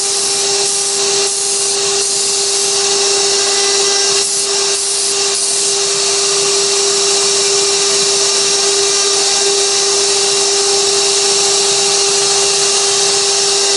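Spindle of a 6060 desktop CNC router running with a steady high whine while its bit cuts wood, carving a 3D relief. There are small brief changes about four to five seconds in, with a constant hiss of cutting under the tone.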